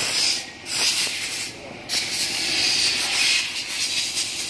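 A hissing jet, in three bursts: two short ones, then a longer one of more than two seconds.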